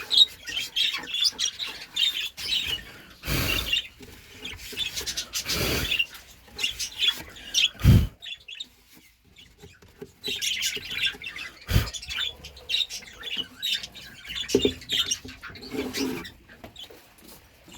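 Budgerigars chirping and chattering in short, scattered calls, over handling rustles in the nest box and a couple of sharp knocks.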